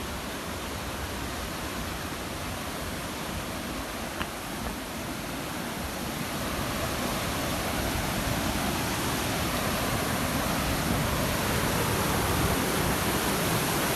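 Fast-flowing mountain river water rushing steadily, growing gradually louder from about halfway through.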